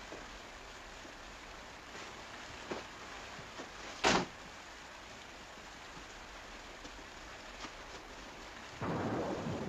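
Steady hiss of rain with a few faint knocks and rustles, and a wooden door shutting with one sharp bang about four seconds in. Near the end the rushing noise grows louder.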